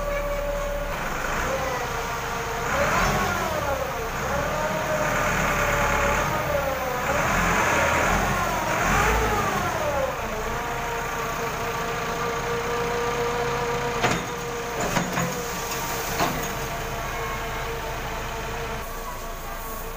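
Tractor engine revving up and down several times while the tipping trolley dumps harvested paddy, then running at a steady speed. A few sharp knocks come about two-thirds of the way through.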